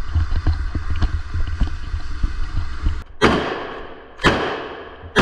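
A low rumble with small knocks, then, about three seconds in, three gunshots fired singly about a second apart, each echoing away.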